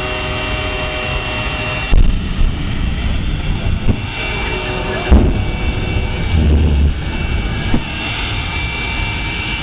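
Jet dragster's turbine engine running with a steady roar and a high whine, broken by three sharp loud bangs about 2, 5 and 8 seconds in and a short deep rumble between the last two.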